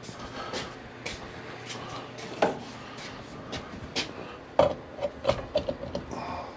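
Knocks, clicks and light metallic clinks from handling a wall-mount fan's motor head as it is fitted onto its metal wall bracket, the sharpest knocks about two and a half and four and a half seconds in, followed by a quick run of lighter clinks.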